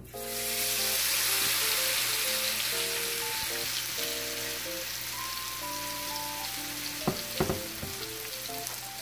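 Egg and rice-flour pitha batter deep-frying in hot oil in a wok. The sizzle bursts up loudly as the batter goes in, then slowly dies down as it fries. A few sharp taps come about seven seconds in.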